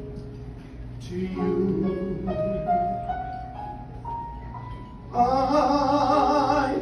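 Instrumental accompaniment to a musical-theatre song, a gentle passage of sustained, stepping notes, then about five seconds in a male singer comes in loudly on a long held note with vibrato.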